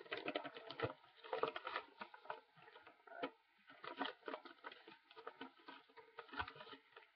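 A sheet of paper rustling and crinkling as it is handled close to the microphone, in many short irregular crackles.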